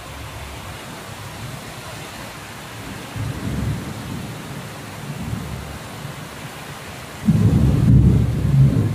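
Thunderstorm: steady rain hiss with thunder rumbling, a low rumble about three seconds in, then a much louder rumble of thunder that breaks in suddenly about seven seconds in and goes on.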